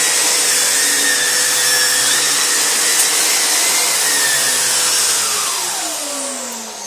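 Stainless Hoover Constellation canister vacuum's motor running steadily with a whine and rushing air. About five seconds in it is switched off, and the motor's whine falls in pitch as it winds down.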